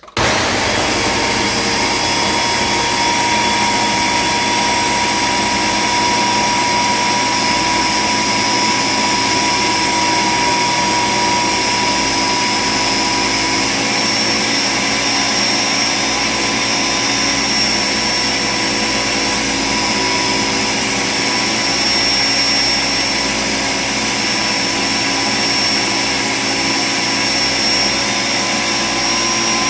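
Ninja Professional 1000-watt countertop blender switched on and running steadily, grinding a full jar of roasted peanuts into peanut butter. It starts abruptly, a loud rushing motor noise with a steady high whine over it.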